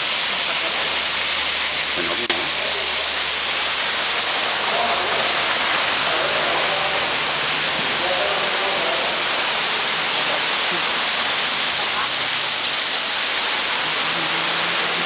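Steady rushing of a waterfall pouring into a pool, with faint voices of people.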